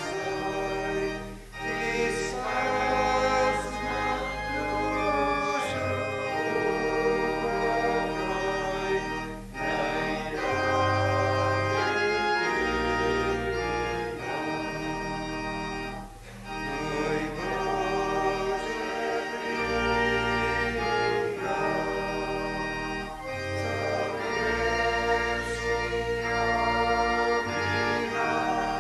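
A church organ accompanies congregational hymn singing, playing sustained chords over a low bass line, with short breaks between the sung lines.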